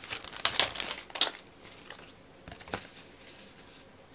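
Paper and packaging rustling and crinkling as a small wrapped gift of stickers is handled. There are a few sharp crinkles in the first second and a half, then quieter handling noises with a couple of light ticks.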